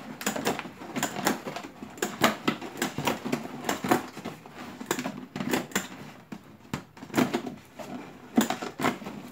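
Hand stapler clacking again and again, irregularly, as staples are driven through overlapping cardboard tabs, with the cardboard rustling as it is handled.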